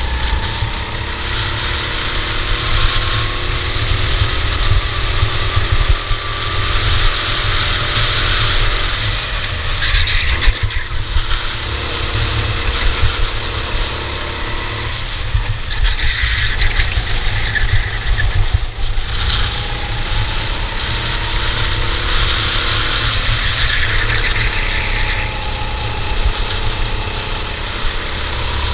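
Cadet racing kart's small engine at race pace, its pitch climbing and falling away again and again as it accelerates and slows for corners, with a steady hiss of wind and tyres over it. It drops off briefly twice, about ten seconds in and again near nineteen seconds.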